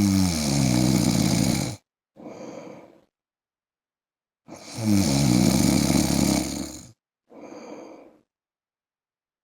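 A man snoring in his sleep: two loud, rattling snores about four and a half seconds apart. Each is followed by a shorter, softer breath.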